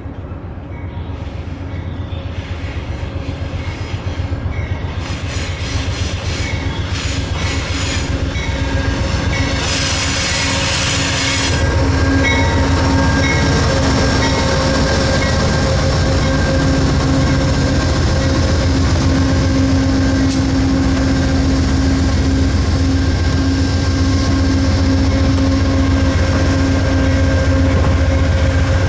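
Two Amtrak diesel passenger locomotives, a GE P42DC and a Siemens ALC-42 Charger, running as they approach and pass close by. The sound grows louder until about twelve seconds in, then holds as a steady engine drone with the rumble of the wheels and a squeal from the wheels on the curve.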